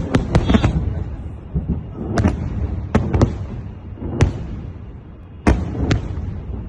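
A series of about nine sharp bangs at irregular intervals over a low rumble: three close together at the start, then single or paired bangs every second or so.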